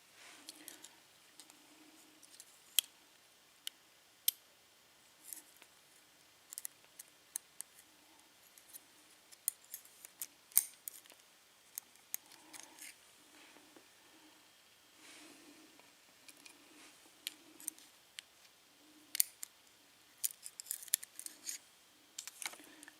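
Lock pins and small parts of a disassembled Yale pin-tumbler lock being handled and removed: irregular, light, sharp metallic clicks and ticks.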